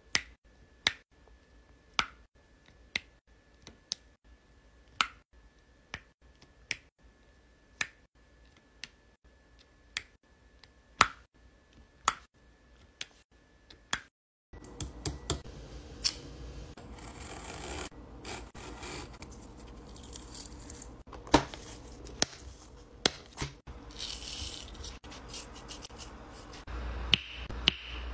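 Diamond-painting pen setting rhinestone drills onto a sticky canvas, one sharp tick for each drill, about once a second. About halfway through this gives way to denser, irregular clicking and tapping of square drills being pressed into place, over a louder background.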